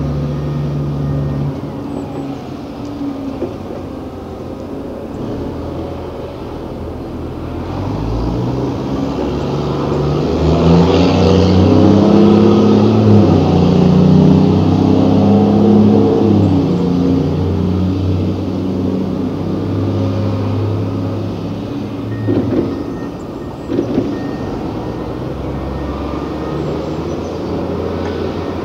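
Diesel engines of heavy quarry earthmoving machinery running. The engine note builds about a third of the way in, is loudest for several seconds with its pitch stepping up and down under load, then eases back. A couple of short knocks come near the end.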